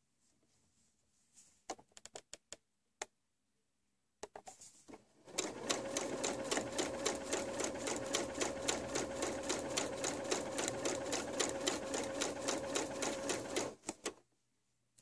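A few scattered light clicks, then an electric sewing machine stitching a seam at a steady pace of about five stitches a second for around eight seconds, stopping shortly before the end.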